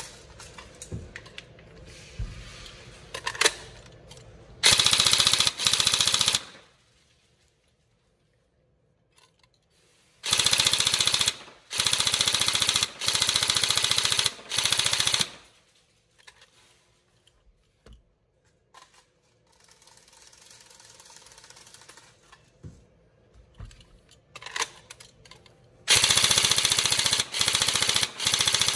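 Tokyo Marui HK416 Devgru Next Generation Recoil Shock airsoft electric rifle, fitted with a high-speed motor, firing full-auto bursts of a second or two each: a rapid rattle of the gearbox and recoil mechanism cycling. Two short bursts come about five seconds in, three more between about ten and fifteen seconds, and a string of bursts near the end, with pauses and a few handling clicks between.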